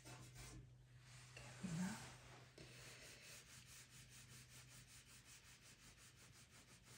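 Pastel pencil scratching across pastel mat paper in quick, even strokes, about five a second, faint. A brief low murmur comes about two seconds in.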